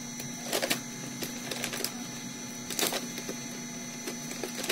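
Thin plastic shopping bag being handled and rummaged through, rustling and crinkling in a few short spells.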